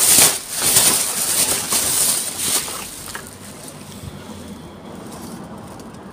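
Plastic rubbish bags rustling and crinkling as gloved hands rummage through a bin, loudest for the first three seconds, then dying down to a faint rustle.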